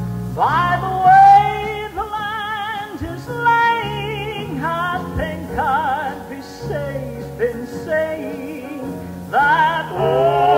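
Southern gospel song performed live: a male lead voice sings with a wide vibrato over a band with a steady bass line.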